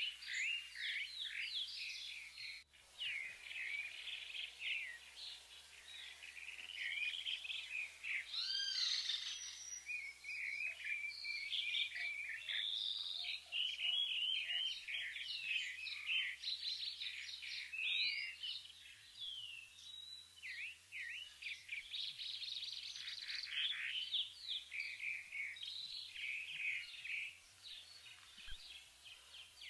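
Many small birds chirping and twittering together, with short, quick, overlapping calls throughout.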